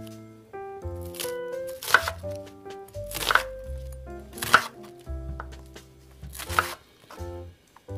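Kitchen knife slicing through an onion and knocking on a wooden cutting board: four sharp cuts spaced one to two seconds apart, over light background music.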